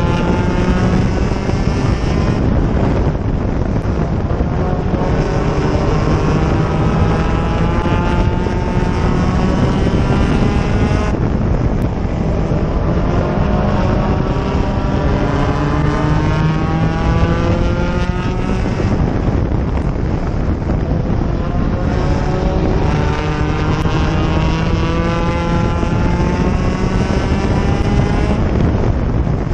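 Race car engine under hard throttle, its note climbing steadily in pitch and then dropping back, over and over, as the car laps the oval.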